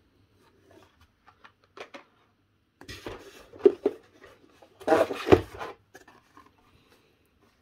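Rustling and scraping of carded toy cars in plastic blister packs being handled and pulled from a cardboard box, with faint ticks and then two louder bursts about three and five seconds in.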